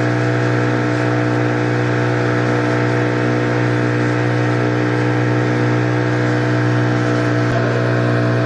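An engine running steadily at a constant speed, giving an even drone with no change in pitch.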